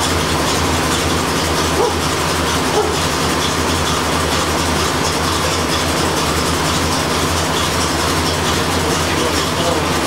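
1985 Corvette's 5.7-litre tuned-port-injected V8 idling steadily, with the air conditioning running while the system is being charged with R-12 refrigerant.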